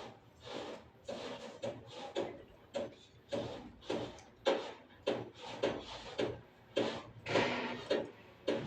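Repeated rasping, scraping strokes, uneven and roughly two a second, like work being done by hand on a rough surface.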